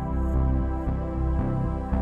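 Background music: calm, ambient synth music with a steady low pulse and chords changing about twice a second.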